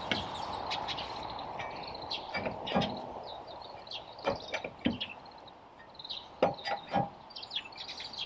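Irregular metallic clicks, taps and clunks of hand tools and wheel hardware during a car tyre change, with a few louder knocks in the middle and near the end.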